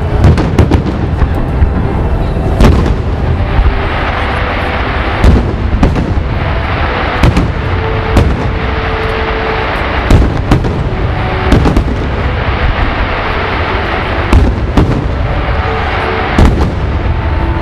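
Aerial fireworks bursting in quick succession: sharp bangs every second or so over a continuous noisy rumble of further bursts.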